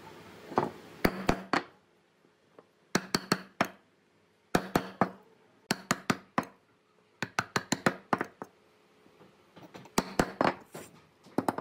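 Steel chisel struck repeatedly to cut into the end grain of a log: sharp knocks in quick groups of three or four, with short pauses between the groups.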